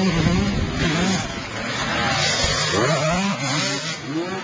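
Off-road motorcycle engine revving, its pitch rising and falling several times.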